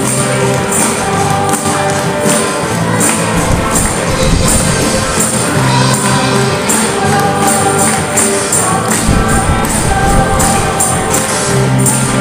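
A live band playing a song, with a group singing into microphones over acoustic guitars, bass guitar and drums. Tambourines jingle steadily on the beat.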